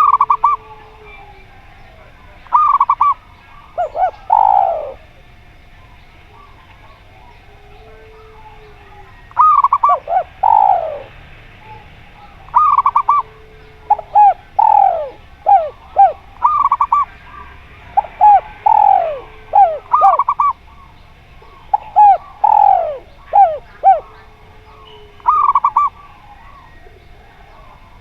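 Zebra doves and spotted doves cooing in repeated phrases: quick stuttering coos mixed with longer falling coos. After a pause of several seconds near the start, the calls come thick and fast.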